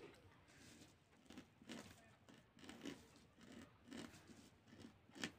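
Near silence with faint, irregular rustling and handling of cloth, and one sharper small click near the end.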